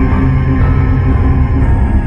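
Background music: dark, ominous soundtrack with sustained droning tones and a heavy pulsing low end.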